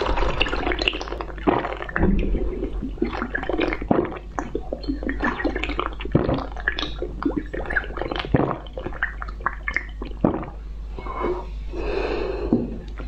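Wet slurping and sucking as soft yellow jelly is drawn out of a bird-shaped glass cup by mouth, with irregular small smacks and clicks and a longer slurp near the end.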